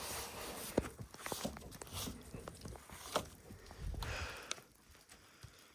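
Irregular crunching and scuffing in deep snow: footsteps and snow being moved, in short soft clicks and thumps with two busier stretches.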